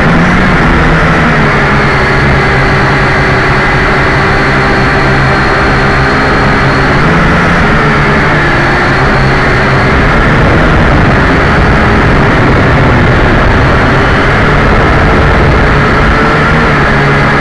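JJRC H12C quadcopter's four motors and propellers running in flight, picked up very close by its own onboard camera. It is a loud, steady whine with several tones that drift slightly up and down as the throttle changes.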